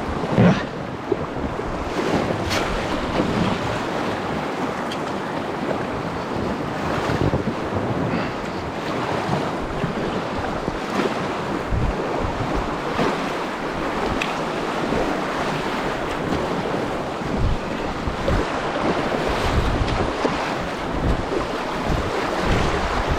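Whitewater rushing steadily around a packraft on a river running through rapids, with wind buffeting the microphone in occasional low thumps.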